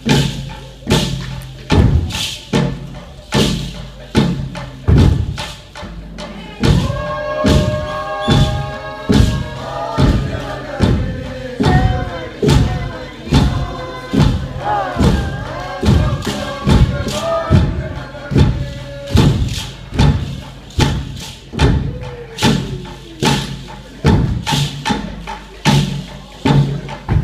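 Indigenous dance performance: a steady, heavy beat of thumps, about three every two seconds, with a group of voices chanting over it from about seven seconds in until about nineteen seconds in.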